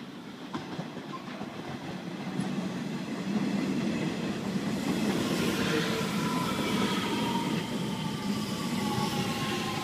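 Nishitetsu 3000 series electric train pulling into a station, its wheels running on the rails and getting louder over the first few seconds as it comes in. From about five seconds in, a whine slowly falls in pitch as the train slows.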